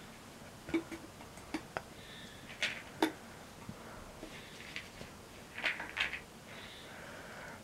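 A handful of light, scattered clicks and taps from a cocker spaniel puppy moving about among its toys on a rug and wooden floor.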